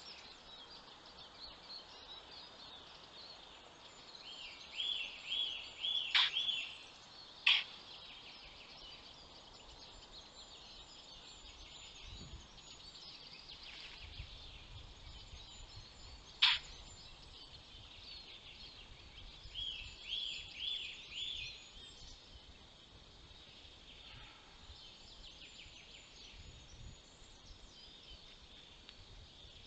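Forest birdsong: a songbird twice repeats a short phrase of about five similar high notes, over a steady background of fainter bird calls. A few sharp single clicks are mixed in.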